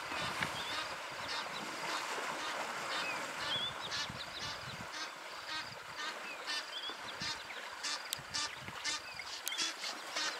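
Waterhole birds giving many short, repeated calls, with a few thin chirps from smaller birds, over a steady wash of water sloshing around wading elephants.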